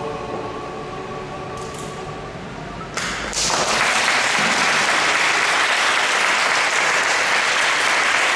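The last sung note of a vocal duet dies away in the church's echo. About three seconds in, audience applause breaks out and keeps going steadily.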